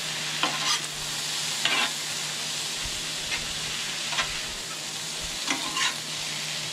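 Chopped meat and potatoes sizzling on a flat-top griddle, with a metal spatula scraping and turning the food in short, irregular strokes every second or so.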